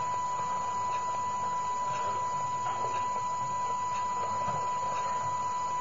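A steady, high-pitched electronic tone held at one pitch, with a faint higher overtone, over low background hiss.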